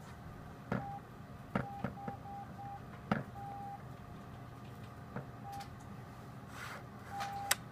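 Keys on a GSM/Wi-Fi home alarm panel's keypad pressed one after another, each press a tap followed by a short beep at the same pitch. There is a longer beep a little after three seconds in. The keypresses fit the panel being set up to learn alarm sensors.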